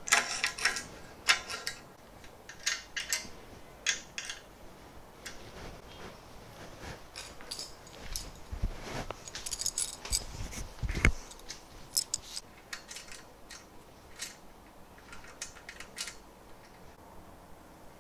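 Small metal parts and tools clinking and tapping against an aluminium extrusion frame during hand assembly, in irregular scattered clicks, with a few dull low knocks between about eight and eleven seconds in.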